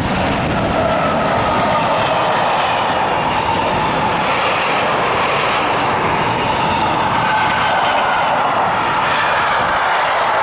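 A heavy freight train passes close by: two electric locomotives followed by flat wagons loaded with steel. The wheels run on the rails with a loud, steady rolling noise.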